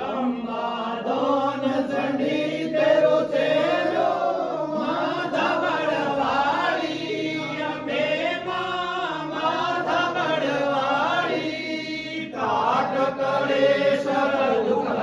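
A group of men chanting a Hindu devotional aarti together in unison.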